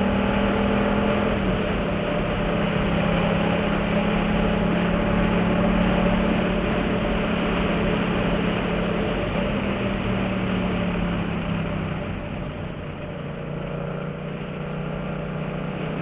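Yamaha MT-07's parallel-twin engine running steadily under throttle through a Jeskap GP Carbon aftermarket exhaust, with wind rushing over the microphone at road speed. About three-quarters of the way through the engine note drops lower and a little quieter as the rider eases off.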